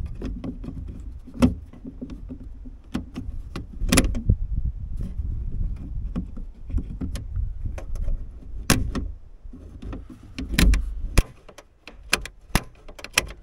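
Irregular small metallic clicks and knocks from a Scania truck's toolbox-lid latch and its release cable being worked by hand, over a low rumble.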